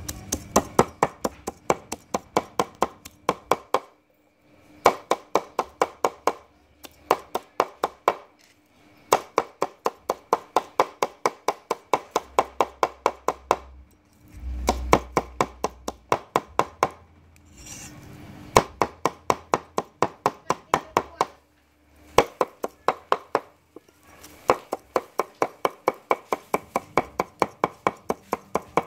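Cleaver chopping cooked beef on a wooden chopping board: fast runs of sharp strokes, about four a second, broken by brief pauses every few seconds.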